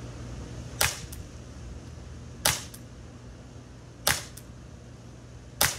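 Umarex Glock 17 Gen 5 .177 CO2 pellet pistol firing four shots about a second and a half apart. Each shot is a sharp pop followed by a fainter click.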